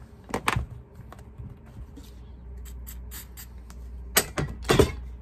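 Small hand tools and metal bag hardware being handled on a steel bench block: a few short clicks and clatters, one about half a second in and a louder cluster about four to five seconds in.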